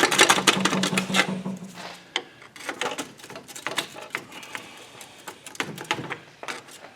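Steel pry bar working against a seized front wheel hub assembly in its steering knuckle: a rapid run of metallic clicks, taps and scrapes, busiest in the first two seconds and then sparser. The hub will not budge because one of its three retaining bolts is still in from the back.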